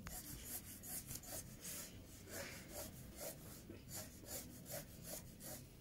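Graphite pencil drawing on drawing paper in short, quick strokes, about three a second, as lines are drawn over.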